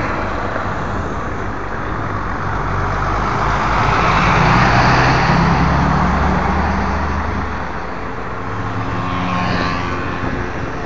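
Road traffic: a motor vehicle drives past, its engine hum and tyre noise swelling to a peak about halfway through and then fading, over steady traffic noise.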